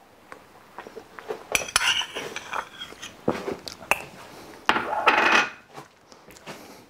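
Ceramic dishes and a spoon clinking and clattering as they are handled and set down, a series of sharp clinks with a longer, louder rattle about five seconds in.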